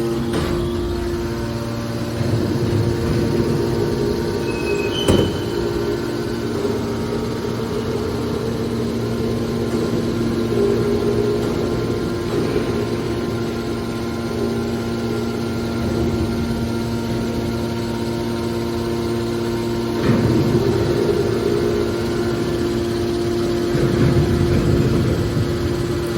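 Hydraulic scrap-metal baler running: its motor and pump give a steady hum, with a sharp knock about five seconds in and louder surges of noise about twenty seconds in and near the end.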